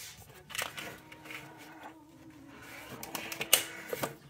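Old rubber upper radiator hose on a 1983 Toyota Tercel being twisted and worked off the radiator neck by hand: scattered creaks, clicks and knocks, with a faint steady hum underneath.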